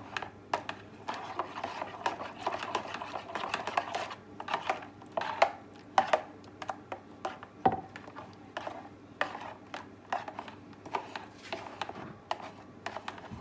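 Metal spoon stirring coconut milk in a bowl, with irregular clicks and light scrapes as it knocks against the sides.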